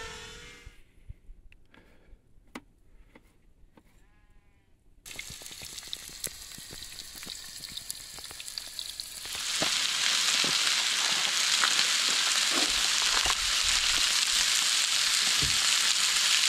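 Chicken breasts frying in a pan: after a few quiet seconds with light clicks, a low crackling sizzle starts, then swells about nine seconds in to a loud, steady sizzle.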